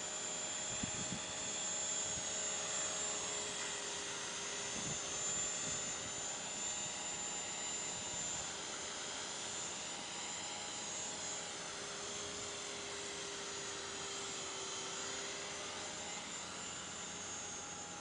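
Align T-Rex 500 electric RC helicopter flying: a steady high motor whine, with the rotor's tones slowly rising and falling as it moves about. The helicopter has a sticker on its main blades that gives it a funny sound.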